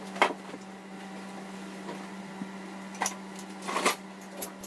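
A steady low electrical hum, with a few scattered knocks and handling noises as things are moved: once near the start, then a short cluster about three to four and a half seconds in.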